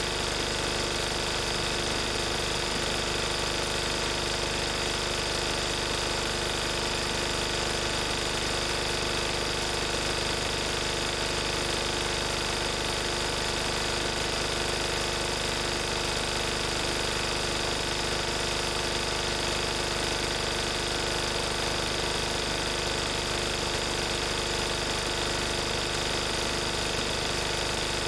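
1994 Lister Petter AD1 single-cylinder air-cooled diesel engine running steadily at its governed 3000 rpm, driving a 5 kVA generator.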